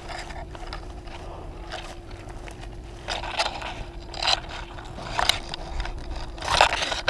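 Irregular scraping and crunching sounds, coming louder and more often from about three seconds in, over a faint steady hum.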